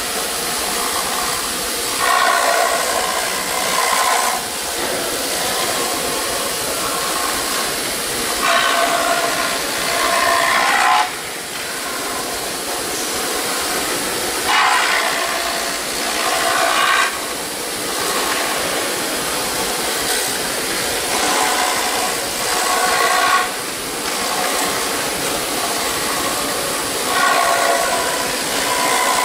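4-axis CNC router's spindle running with a thin steady high whine while its end mill mills EPS foam on the rotary axis. About every six seconds the cutting swells into a louder, pitched buzzing spell lasting about two seconds.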